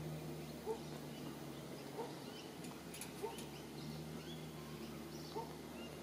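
Birds calling: a short rising note repeated about every second and a half, with fainter high chirps in between.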